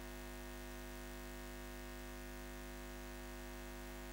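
Steady low electrical hum with a hiss over it: the buzz of a neon sign.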